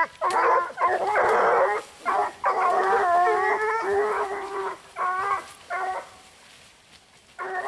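Young Gascon hounds baying, several voices overlapping in long drawn-out cries with short breaks; the cry stops for about a second near the end.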